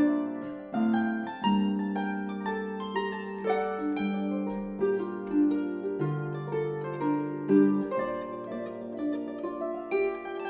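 Background music: a gentle plucked-string melody, harp-like, with quick successive notes over long held low notes.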